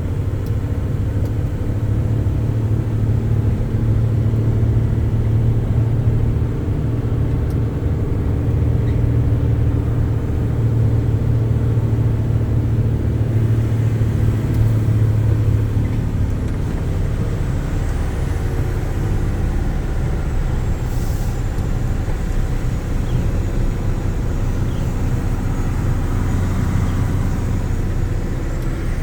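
Vehicle engine running steadily with road noise while driving: a low, even drone.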